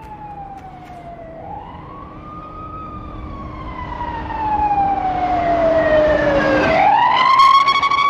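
Wail (long) siren on a pickup truck approaching at about 80 km/h. The siren tone sweeps slowly down and up, one long fall and rise taking several seconds, and grows steadily louder as the truck nears.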